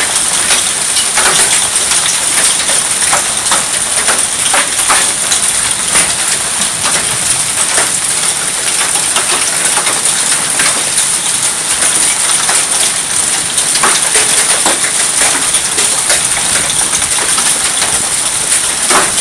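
Heavy rain mixed with small hail pelting a shingled roof and wet pavement: a steady hiss of rain with many scattered sharp clicks of hailstones striking.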